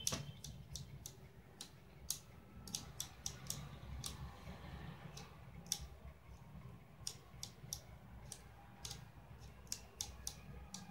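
Soroban abacus beads flicked quickly with the fingers, giving an irregular run of faint, sharp clicks, about two to three a second, as beads are moved one at a time in a count-down-by-ones drill.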